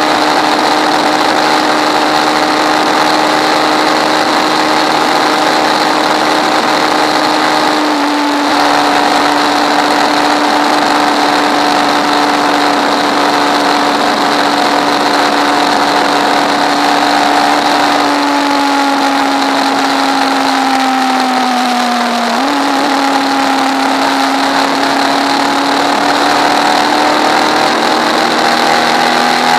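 Hyper Pro Racer's engine running hard, heard from on board. It holds a steady high note with a small dip about eight seconds in. Past the middle the pitch sags as the car slows, then jumps sharply up and climbs again toward the end.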